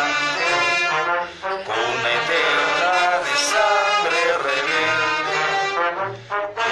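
Brass music playing, with short breaks in the sound about a second and a half in and near the end.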